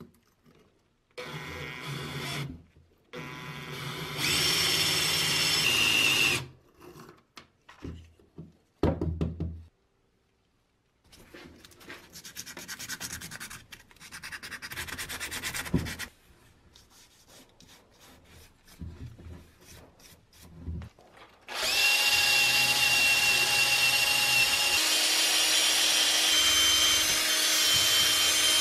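A handheld power tool runs in separate bursts: briefly about a second in, again from about four to six seconds, more roughly from eleven to sixteen seconds, and steadily through the last seven seconds with a thin high whine. Between bursts there is rubbing and knocking of hand work on parts.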